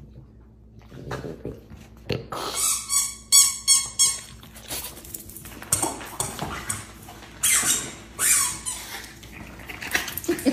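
Squeaky dog toy squeaked repeatedly as a French bulldog chews it, in quick runs of high squeaks about two to four seconds in and again near eight seconds.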